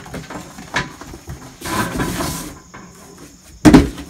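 Rummaging inside a cardboard shipping box of steel cart parts: light clicks and knocks, then a rustle of cardboard and packing paper, and a single loud knock near the end.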